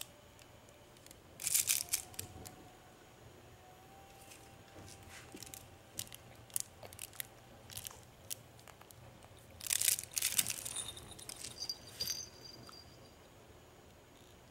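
Crinkling and rustling of an infant's soft fabric toy gripped in a baby's hand, in two louder bursts about a second and a half in and about ten seconds in, with small scattered crackles between.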